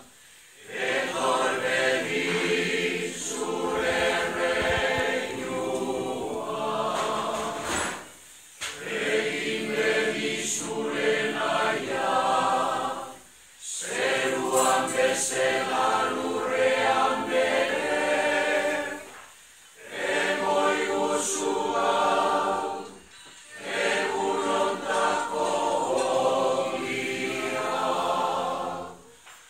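A Basque choir singing together in long phrases, the voices stopping briefly between phrases four times.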